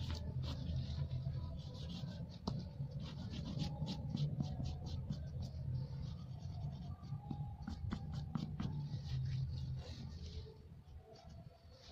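Oil pastel stroked quickly back and forth across paper in many short, scratchy strokes, over a steady low hum. The strokes stop near the end.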